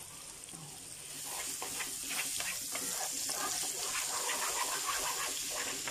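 Minced garlic sizzling in melted butter and oil in a frying pan while a wooden spoon stirs and scrapes against the pan. The sizzle grows louder about a second in.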